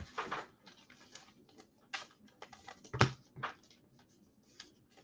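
Computer keyboard typing: irregular runs of key clicks, with one louder knock about three seconds in.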